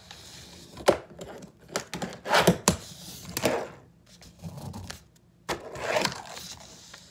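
Fingerboard knocking down onto a table and ledge and scraping along a ledge covered in printed brick paper: several sharp clacks with short grinds between.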